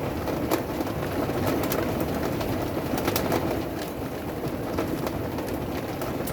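Steady patter of rain with scattered sharp taps.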